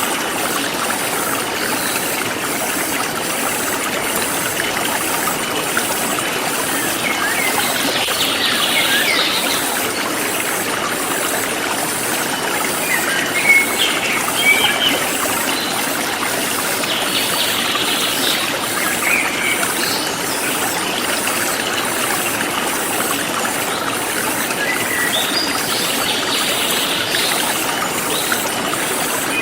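Forest stream flowing and trickling steadily, with birds chirping in short bouts several times over it and a high insect chirr pulsing about twice a second.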